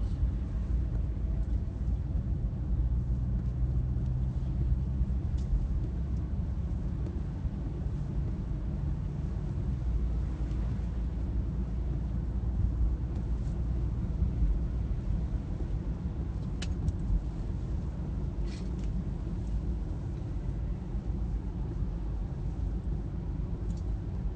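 Steady low rumble of road noise inside a moving car's cabin on a rain-wet road, engine and tyres together, with a couple of brief sharp ticks in the second half.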